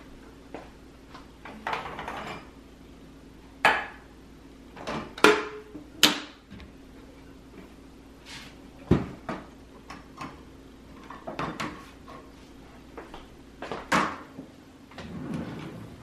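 Dishes and plastic food containers clattering and knocking as they are lifted out of a wire dish rack and put away, with cabinet doors opening and closing. The strikes are irregular, the sharpest about four seconds in, twice more around five to six seconds in, and again near the end.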